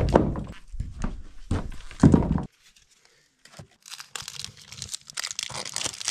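Split firewood logs knocking heavily, about four times, as they are handled and set into a wood stove; after a short pause, dry paper and tinder crinkling and tearing as the fire is laid and lit.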